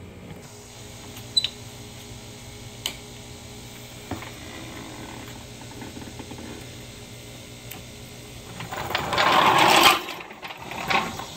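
Steel floor jack being lowered and rolled out from under the car across concrete: a few light metal clicks, then a loud rolling, scraping noise of its wheels lasting about a second near the end, over a steady background hum.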